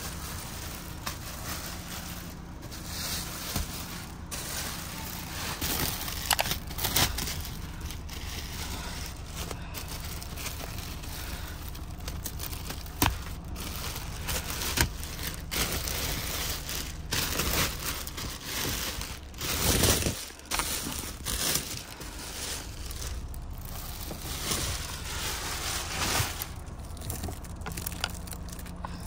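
Thin clear plastic protective covers being pulled and peeled off car seats, a headrest and door trim, crinkling, rustling and tearing in irregular bursts, with out-of-breath panting.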